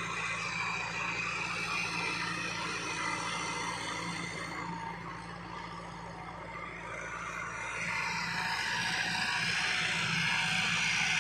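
Massey Ferguson 385 tractor's four-cylinder diesel engine running steadily under load while pulling a heavy disc harrow. It fades a little about halfway through and grows louder again near the end.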